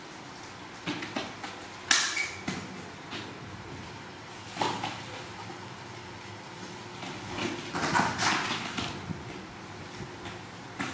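Short scattered bursts of rustling and handling noise as a baby macaque is dressed in a diaper and clothes on a towel, the loudest about two seconds in and a cluster around eight seconds.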